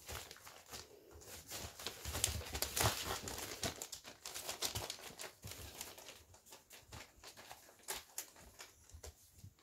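Newspaper crinkling and rustling under the paws of Kromfohrländer puppies moving about on it, a busy run of small crackles that is thickest a couple of seconds in and thins out toward the end.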